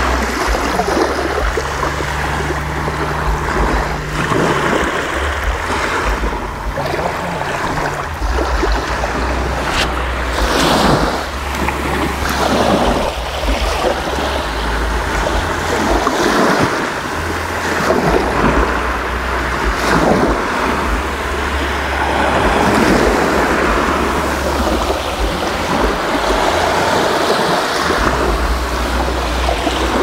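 Small sea waves breaking and washing up a sandy shore, the surf swelling and easing every few seconds, with a low wind rumble on the microphone.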